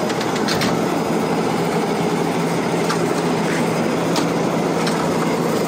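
An engine running steadily, with a few light clicks.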